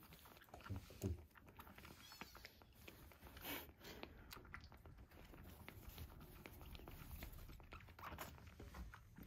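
Kitten suckling milk from a nursing bottle's nipple: faint, soft sucking and smacking clicks.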